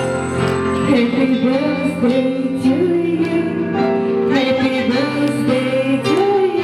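Music: a song with a singing voice carrying a wavering melody over steady instrumental backing.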